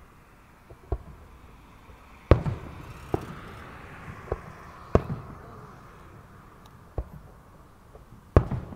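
Aerial firework shells bursting: about seven booms at irregular intervals. The loudest come about two seconds in and near the end, and each big one trails a short echo.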